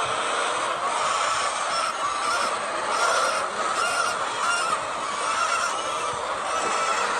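A large flock of laying hens clucking and squawking continuously, many calls overlapping into a steady din.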